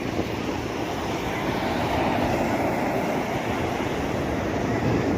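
Sea water rushing in a steady, low rumbling wash that slowly grows louder.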